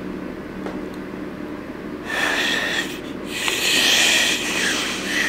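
A failed finger-whistle attempt: two breathy blows of air past fingers held in the lips, about two seconds in and again about a second later, the second one longer. They are mostly rushing air, with only a faint thin whistle tone in them.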